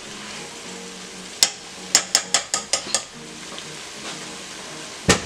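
Chopped onions, celery and peppers sizzling in a stainless steel pot as a metal spoon stirs them and clicks against the pot, with a quick run of about six taps in the middle. One louder knock comes near the end.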